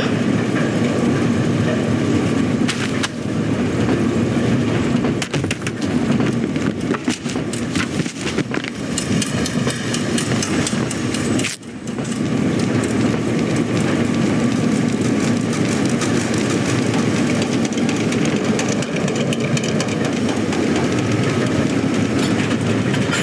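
Continuous rumbling clatter of an airport baggage conveyor system running, with scattered sharp knocks, and a brief dip in the noise about halfway through.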